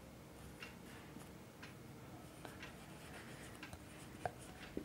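Marker pen writing on a whiteboard: faint short squeaks and scratches, one per stroke of the letters, with a sharper click about four seconds in.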